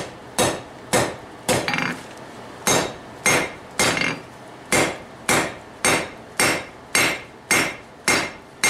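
Hand hammer striking hot quarter-inch round steel bar on an anvil, drawing it out: a steady run of blows about two a second, each with a short metallic ring, with a brief pause around two seconds in.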